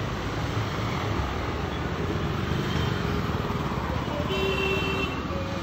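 Steady street traffic noise, with vehicle engines running, and a short vehicle horn toot about four seconds in.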